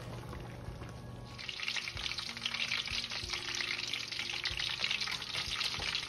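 Boiled beef and goat meat frying in hot oil, a dense sizzle with constant fine crackling that starts about a second and a half in.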